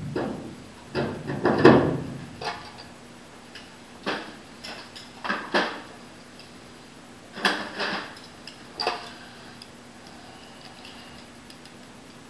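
Handling noise and a run of separate knocks and light metallic clinks as a plastic drill guide is taken off an aluminium wing skin and an aluminium inspection ring is set against it with a hand tool. The loudest knocks come in the first two seconds; the last few seconds hold only a faint steady hum.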